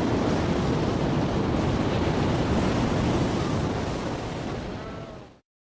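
Ocean surf washing as a steady rush, fading out near the end and cutting off to silence.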